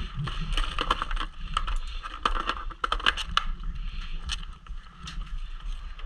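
Paintball markers firing: irregular sharp pops, some in quick clusters of several shots, over a low steady rumble.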